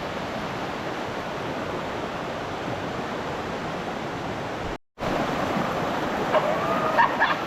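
Steady rush of flowing river water. It drops out for a moment just under five seconds in, then resumes a little louder, with a few short high whistled calls near the end.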